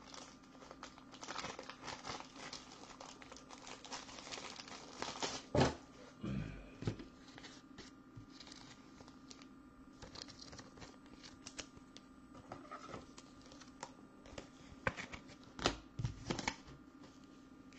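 Trading-card pack wrapper crinkling and tearing as a pack of Bowman's Best cards is opened and the cards handled, with several sharp knocks of cards set down on the table, the loudest about five and a half seconds in and again near the end.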